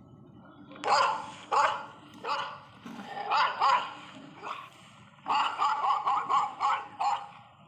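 A dog barking: a few single barks spaced about a second apart, then a quick run of barks about five seconds in.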